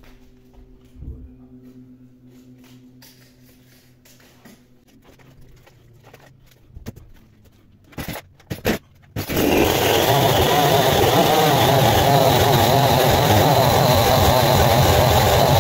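Petrol chainsaw being pull-started: two short rasps of the starter cord about eight seconds in, then the two-stroke engine catches a second later and runs loud and steady.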